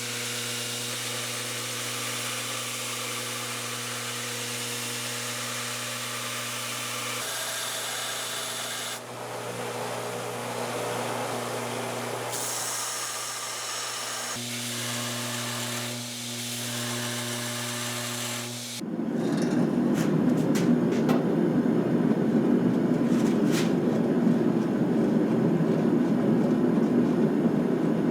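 Power grinder working forged Damascus steel chisels during cleanup: a steady motor hum under a high grinding hiss that shifts several times. About two-thirds of the way through it gives way to a louder, rougher grinding with scattered clicks.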